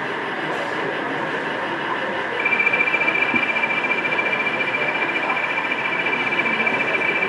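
A pair of model Class 20 diesel locomotives running on the layout, with a steady high-pitched whine that starts about two and a half seconds in and holds, over the even background noise of a busy exhibition hall.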